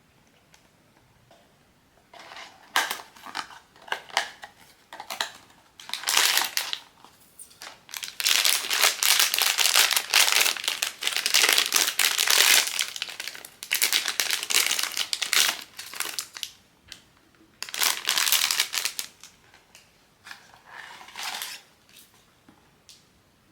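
Blind-box packaging being handled and opened: irregular bouts of crinkling and crumpling of the wrapping. It is heaviest and most continuous in the middle, with a shorter bout near the end.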